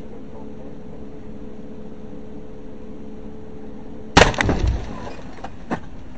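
Steady drone of a car's engine and tyres heard from inside the cabin at highway speed, then about four seconds in a sudden loud crash as an object strikes and cracks the windshield, followed by rattling and a few sharp ticks from the impact.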